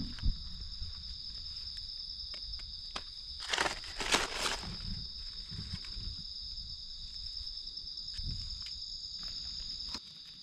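A steady, high-pitched chorus of night insects, with dry leaves rustling and crackling as mushrooms are picked by hand from the leaf litter. The loudest rustles come around the middle.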